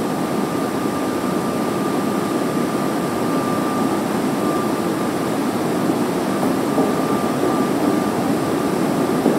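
Steady ventilation or air-conditioning hum with a faint, steady high whine in it.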